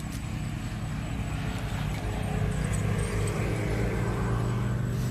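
A motor engine running steadily, growing louder about two seconds in.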